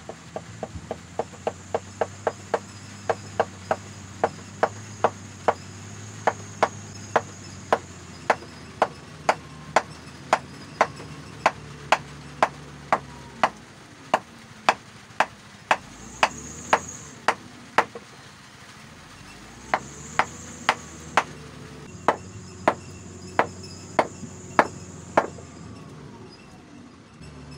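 A bolo's new wooden handle knocked butt-first against a wooden block again and again, driving the handle home onto the blade's tang. It starts with a quick run of light knocks, then settles into steady hard knocks about one and a half a second, broken by two short pauses.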